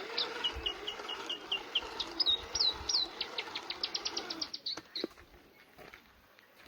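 Recorded call of a South Island robin (kakaruwai), played back: a quick series of short, high, clear notes. First comes a run of falling notes, then a few louder slurred ones, then a rapid string of rising notes. It stops about four and a half seconds in.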